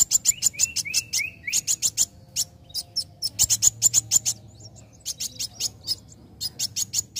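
Young copper-throated sunbird (kolibri wulung) singing: fast runs of sharp, high chips, many a second, broken by short pauses, with a few quick slurred notes about a second in.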